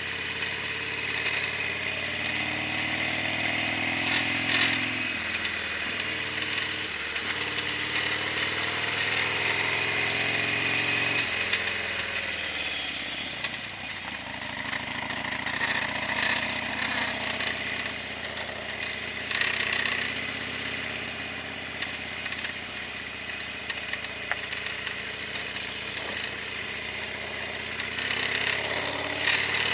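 Harley-Davidson Sportster XL1200R's air-cooled V-twin engine running on the move, its pitch falling and rising with throttle and gear changes, over a steady hiss.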